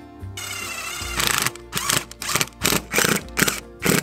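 Cordless driver running screws into a bulkhead power connector on the van's sheet-metal body. Its motor whines for about a second near the start, over background music.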